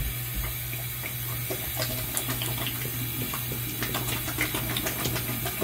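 Bathroom sink tap running steadily, with many small splashes as water is scooped onto a face to rinse it.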